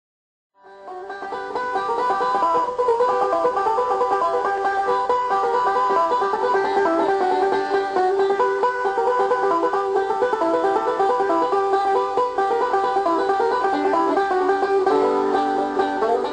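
Bluegrass banjo music, a stream of quick picked notes, fading in over the first couple of seconds and then playing steadily.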